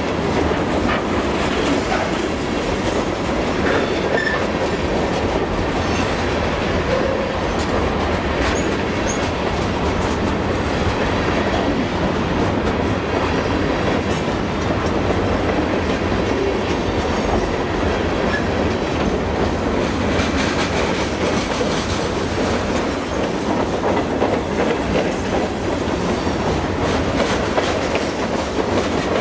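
Freight train of open-top gondola cars rolling past close by: a steady rumble with wheels clacking over the rails, and now and then a brief high wheel squeal. The last car passes near the end.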